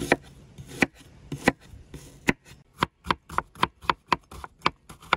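Chef's knife chopping an onion on a wooden cutting board: a series of sharp knife strikes, slow and spaced at first, then quicker, about four a second, in the second half.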